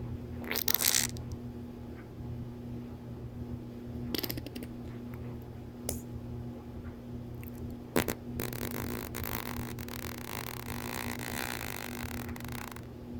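Parrotlet making raspy buzzing noises: a short burst near the start, another cluster about four seconds in, then a long buzz of about four seconds in the second half.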